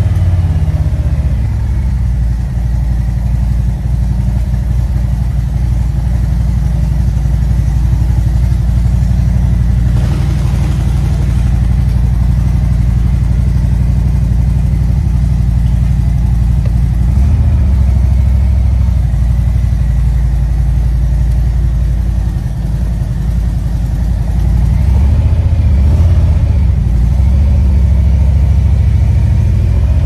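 Harley-Davidson V-twin motorcycle engine idling loudly and steadily just after being started, with a couple of brief rises in revs, one about halfway through and one near the end.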